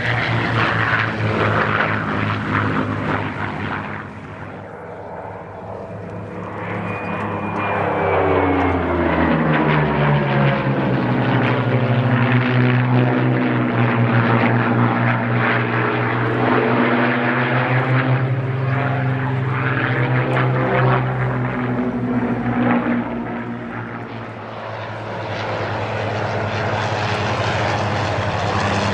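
Propeller aircraft's piston engines droning as it flies past, the engine note dropping in pitch about eight to ten seconds in as it passes, then staying loud through the middle stretch before easing and returning near the end.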